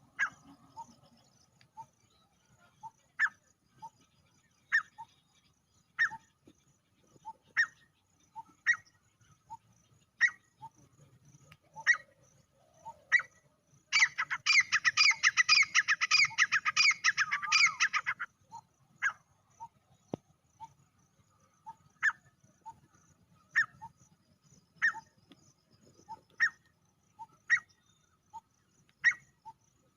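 Male grey francolin calling: sharp, loud call notes repeated about every one and a half seconds. Midway the calling turns into a dense, rapid run of notes that lasts about four seconds.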